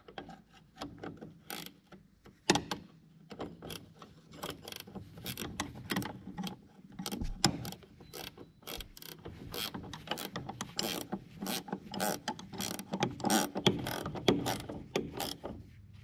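Hand tools working on metal as a bolt is put back into the knotter assembly of an Oliver 720 baler: a long run of sharp, irregular metallic clicks and clanks, sparse at first and coming thicker after about five seconds.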